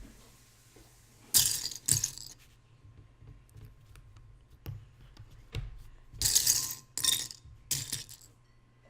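Small plastic Lego pieces clattering and clinking together in five short bursts.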